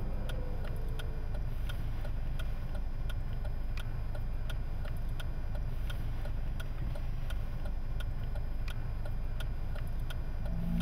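Steady, evenly spaced ticking, about two ticks a second, over a constant low rumble.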